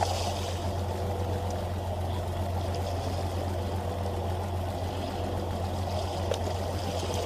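Boat engine idling steadily, a low even hum, with water splashing against the hull.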